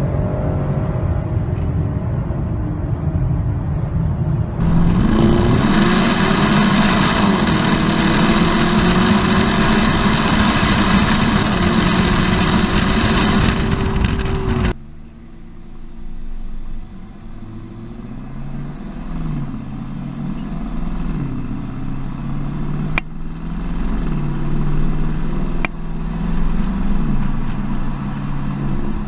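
2015 BMW X5's petrol engine pulling hard at high revs under full acceleration, heard from inside the cabin with heavy road and wind noise. About halfway through it changes to the exhaust note recorded at the tailpipe while driving, the engine pitch stepping up and down with wind rushing over the microphone.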